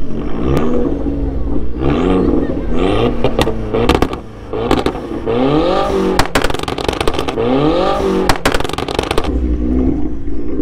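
A car engine revving hard several times, each rev a quick sweep up in pitch, with sharp pops in between during the second half.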